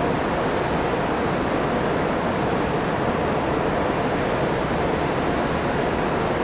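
Steady, even rushing noise that holds at one level throughout, with no distinct knocks, tools or voices standing out.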